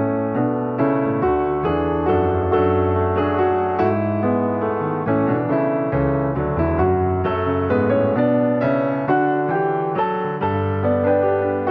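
Piano music: a flowing stream of notes with a sustained bass, at a steady level.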